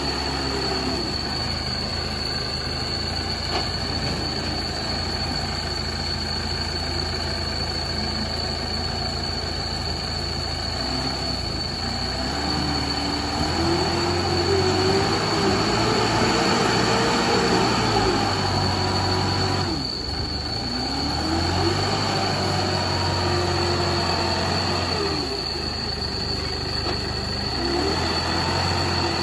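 LEHMAN ZL936 wheel loader's diesel engine running and revving under hydraulic load as it scoops sand and lifts the bucket, its pitch rising and falling several times over a steady low drone, with a steady high whine throughout.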